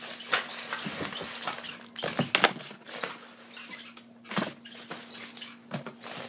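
Packaging being handled and opened by hand: irregular crinkles, clicks and rustles, with a faint steady hum underneath.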